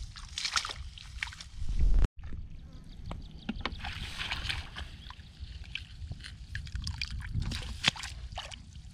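Hands and feet sloshing and splashing in shallow muddy water while groping in the mud, a string of small irregular splashes over a steady low rumble. The sound cuts out briefly about two seconds in.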